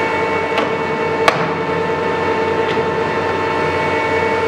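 Kingston HD series engine lathe running, a steady whine from its geared drive. A sharp click comes about a second in, with fainter clicks shortly before and after.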